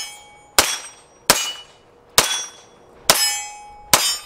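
Grand Power X-Calibur 9mm pistol firing five shots at a steady pace, roughly one every 0.8 s, each crack followed by a brief metallic ring.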